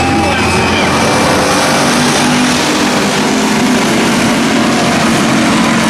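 Several dirt-track stock cars racing together, their engines running loud and steady.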